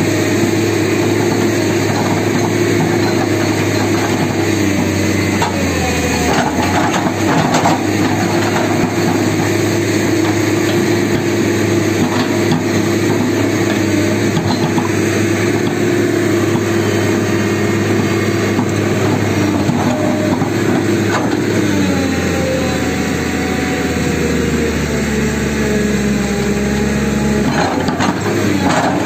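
Tata Hitachi hydraulic excavator's diesel engine running under load as the bucket digs into soil and stones, its note shifting in pitch as the boom and bucket work. There are a few scrapes and knocks of the bucket in the dirt, one near the start and a couple near the end.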